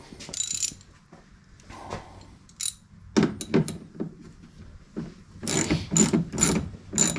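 Hand ratchet wrench clicking in short bursts of quick back-and-forth strokes, driving a fastener. The longest run of strokes comes in the second half.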